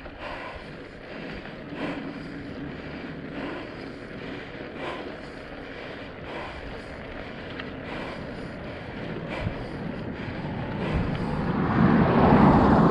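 Wind rushing over the microphone along with a motorcycle's running engine and tyre noise at road speed, swelling louder about ten seconds in.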